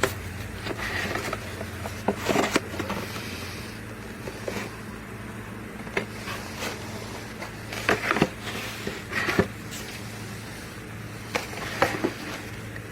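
A steady low hum, with scattered clicks and knocks over it.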